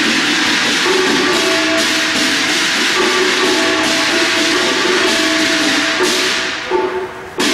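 Cantonese opera percussion accompaniment: cymbals and gongs played in a continuous loud wash over a held tone, fading out near the end.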